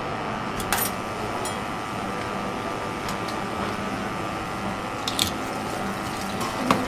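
Tap water running steadily into a steel sink while a knife pries at a turban shell, its blade clicking sharply against the shell a few times. The loudest click comes near the end.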